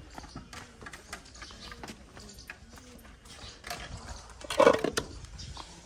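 Cows moving and feeding at a concrete trough, with scattered knocks and clicks, and a steel feed pan being handled. A louder, short clatter comes about four and a half seconds in.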